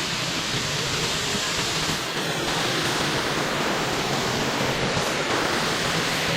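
Waterfall: the steady, continuous rush of falling water.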